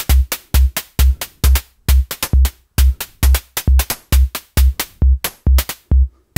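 Synthesized electronic drum pattern at 134 BPM: a Reaktor Blocks Bento Box kick drum thumping on every beat, with a sequenced FM hi-hat ticking unevenly between the kicks.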